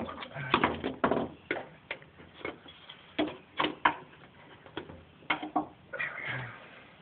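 Irregular knocks and taps of hand tools on a Jeep's steel floor pan as sound-deadening mat is worked and pressed down, a dozen or so sharp strikes at uneven intervals.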